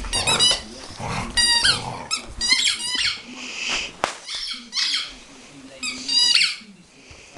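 A dog's red rubber squeaky Kong toy squeaking as the dog chews it: about six short bursts of high, wavering squeaks, roughly one a second.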